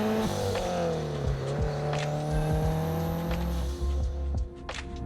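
2013 Subaru WRX STI's turbocharged flat-four engine accelerating while driving. Its pitch drops at a gear change just after the start, climbs again, then falls away about three and a half seconds in.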